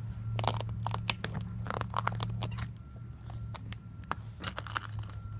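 Thin ice being broken: a quick, irregular series of sharp cracks and crunches, busiest in the first three seconds and sparser after. A steady low hum runs underneath.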